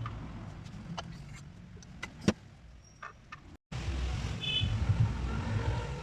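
A car engine running with a low, steady rumble, broken by a few sharp clicks. The sound drops out completely for a moment about three and a half seconds in, then returns louder.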